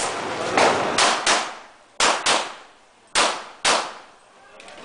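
Pistol shots fired during a practical shooting stage: about seven sharp cracks in quick pairs and singles, each with a short echoing tail.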